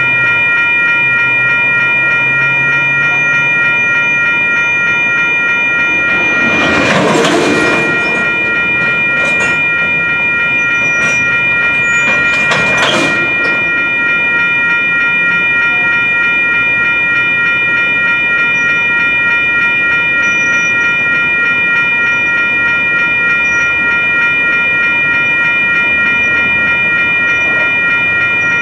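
Electronic grade-crossing bells ringing steadily while the tail of a freight train of covered hopper cars rolls through the crossing. About seven seconds in, and again about six seconds later, the passing cars give a brief louder rush of noise.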